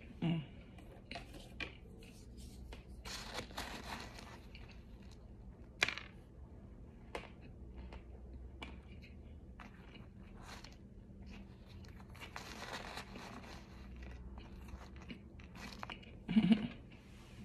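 A person chewing something crunchy close to the microphone: irregular crunches with quieter stretches between, the sharpest about six seconds in. A short low hum comes at the start and again near the end.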